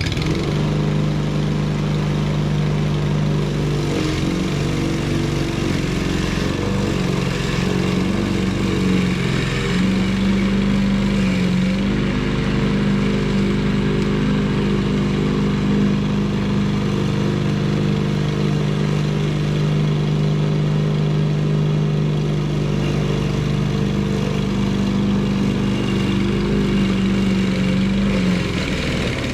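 Walk-behind lawn mower's small gasoline engine running steadily at speed, its pitch shifting briefly a few times. It has just been tuned and runs smoothly.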